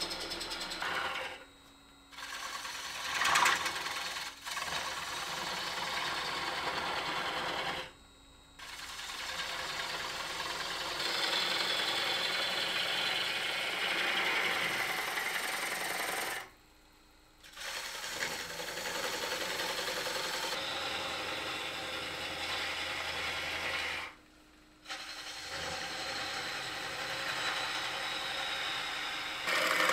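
A gouge cutting a spinning ambrosia maple bowl blank on a Laguna wood lathe: a steady cutting noise of shavings coming off the wood over the lathe's running. It breaks off for four short pauses, and there is one louder burst about three seconds in.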